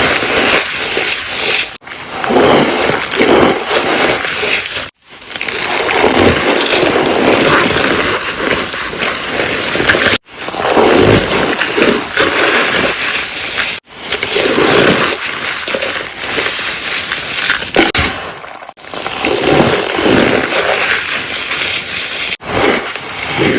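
Gym chalk being squeezed and crushed by hand, a squeaky crunching texture, in several takes each broken off by a sudden cut.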